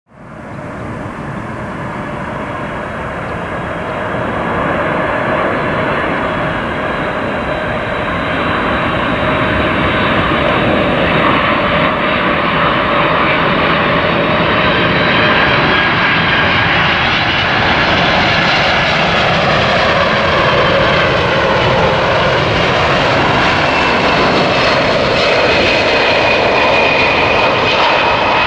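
Boeing 747-400F's four jet engines on approach to land: a loud, steady rumble with high-pitched whining tones, the screeching sound of 747 engines. It grows louder over the first few seconds as the jet nears, and some of the whining tones slide down in pitch later on as it passes.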